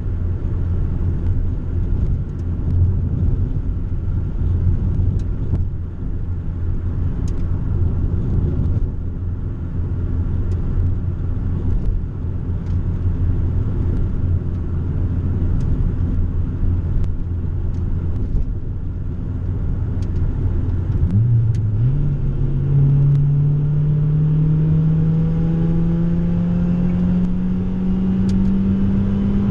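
Cabin noise of a 1990 Honda Civic's D16 four-cylinder engine through an aftermarket Vibrant muffler with no resonator: a steady, deep cruising drone with road noise. About two-thirds of the way in the engine note jumps up and then climbs steadily as the car accelerates.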